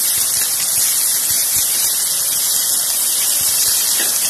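Sliced onion sizzling as it is sautéed in hot cooking oil in a frying pan, a steady hiss, with a few light knocks of the spatula against the pan.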